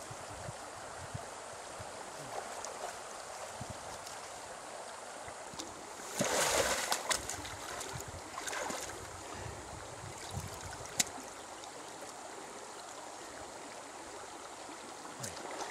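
Shallow creek water running steadily, with a burst of splashing about six seconds in and a smaller one a couple of seconds later as someone moves through the water around a pig carcass. A single sharp click comes near the middle.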